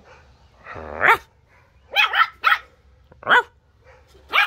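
Small terrier puppy barking: a rising growl-bark about a second in, then about five short, high-pitched yaps.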